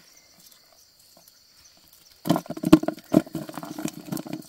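A shrimp trap being hauled out of shallow water: faint at first, then from about two seconds in loud, rough, irregular rattling and sloshing.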